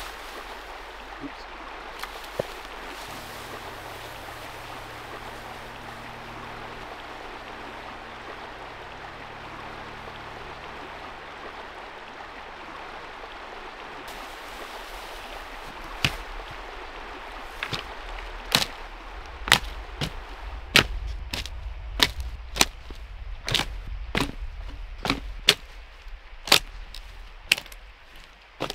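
Dry branches being snapped by hand and underfoot for firewood: a run of sharp wooden cracks, one or two a second, beginning about halfway through, over a steady rush of flowing water.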